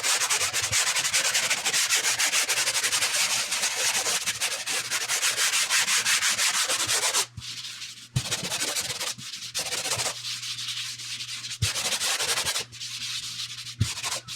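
100-grit sandpaper on a hand sander rubbing back and forth over a dried drywall patch of quick-set joint compound: a fast, steady scratchy sanding for about seven seconds, then shorter strokes with pauses. This is the light sanding of the dried second coat to feather it smooth.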